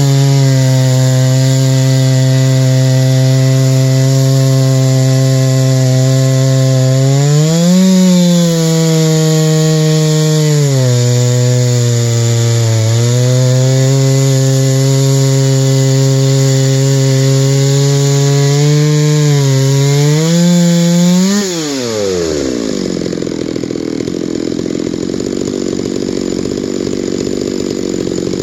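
Chainsaw running at high revs under load, ripping lengthwise through a white spruce log. The engine note rises and sags a little as the load changes, then, about three-quarters through, it drops off sharply and gives way to a lower, rougher running sound.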